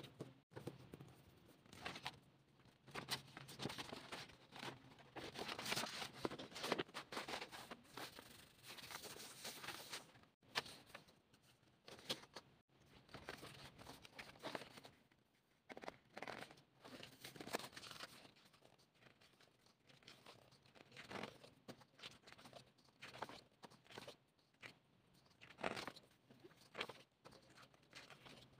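Large glossy pages of a K-pop album photobook being turned and handled by hand: faint, irregular paper rustles, crinkles and small taps, busiest in the first third.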